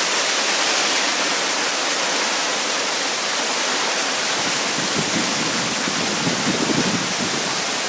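Hail falling: a dense, steady hiss of many small hailstone impacts.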